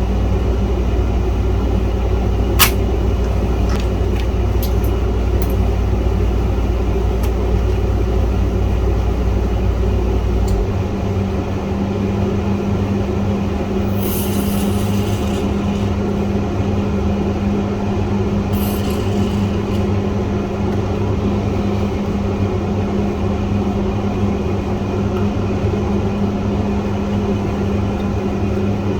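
Steady electrical or mechanical hum with a deep low rumble that stops about ten seconds in, while the higher hum continues. A sharp click comes near the start, and two short hissing bursts come about halfway through.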